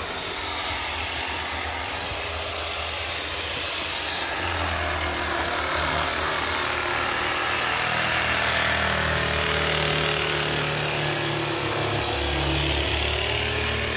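A motor-driven tool running steadily without a break, its low hum shifting pitch about four seconds in and again near the end.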